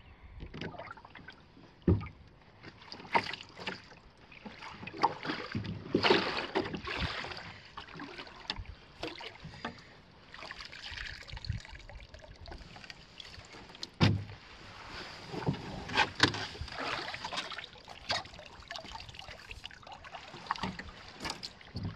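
Canoe paddling: a wooden paddle dipping and pulling through calm water, with irregular splashes and drips and a few sharp knocks.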